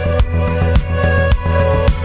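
Background music with a steady beat, about two beats a second, over sustained chords.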